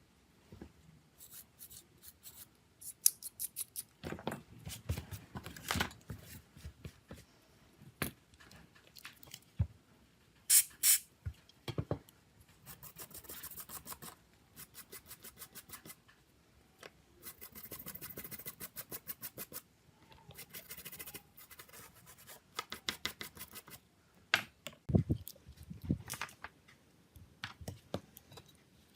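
Small hand tools and phone parts being handled up close: scattered clicks, taps and scrapes, with two short runs of rapid, even ticking.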